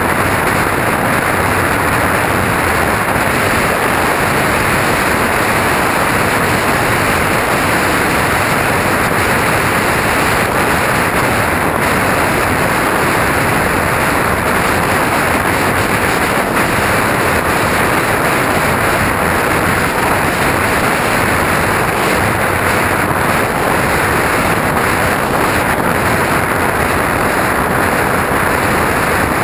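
Radio-controlled airplane in flight, heard from a camera mounted on it: a steady, loud rushing of airflow and propeller noise with no clear pitch.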